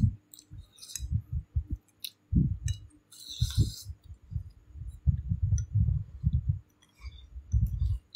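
Eating close to a phone microphone: chewing, light clicks of chopsticks on a porcelain bowl, and many irregular dull low thumps. There is a short hiss, like a slurp from the bowl, a little after three seconds in.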